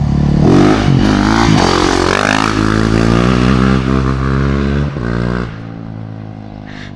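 Yamaha WR450F four-stroke single-cylinder supermoto engine revved in a few quick blips, then held at a steady raised speed. About five and a half seconds in it drops back, quieter, to a lower idle.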